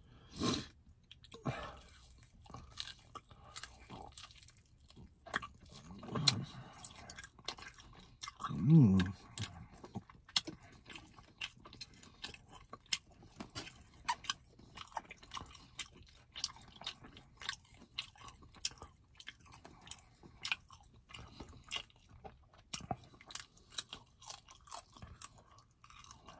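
Close-up chewing and lip smacking from a person eating meat with the fingers: many short wet clicks and smacks throughout, with a few brief hums near the start and about six and nine seconds in.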